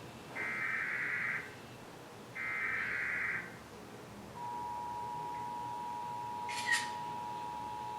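Emergency Alert System header: two one-second stretches of digital data tones, a second apart. About four and a half seconds in, the steady two-tone EAS attention signal begins, with a brief sharp chirp over it near the end.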